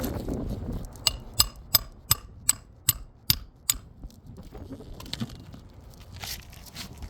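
Hammer tapping a roofing nail into an asphalt shingle: eight quick, sharp metallic strikes about two to three a second, followed by a couple of lighter knocks.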